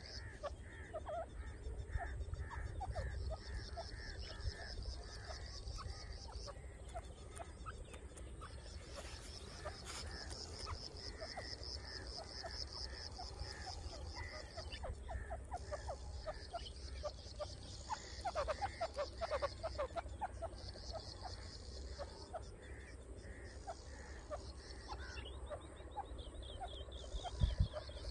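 Grey francolin (teetar) calling, with runs of short repeated notes at about two a second, over a continuous high insect trill that starts and stops every few seconds and a low rumble.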